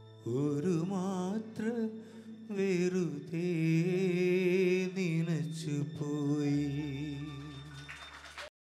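A man singing solo into a handheld microphone: a few short, ornamented phrases with wavering pitch, then a long held note with vibrato that slowly fades and cuts off suddenly near the end.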